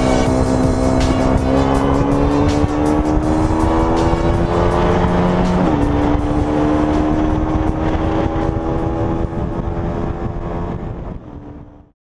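KTM 125 Duke's single-cylinder engine pulling under acceleration, its pitch climbing steadily, dropping at an upshift about six seconds in, then climbing again before fading out near the end.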